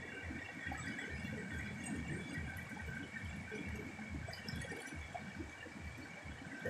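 Fast-flowing muddy river rushing over rocks in a steady, continuous wash of water, with a steady high-pitched ringing drone in the background.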